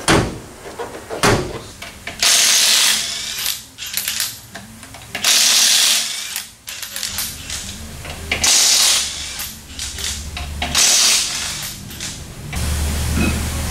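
Pneumatic air tool run in four short bursts of about a second each, loosening fasteners on the front wheel and suspension of a 1968 Camaro.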